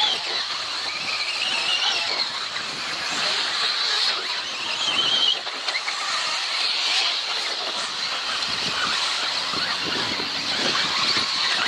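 Electric RC off-road buggies racing: high-pitched motor whines that rise and fall as the cars accelerate and brake, over a steady hiss.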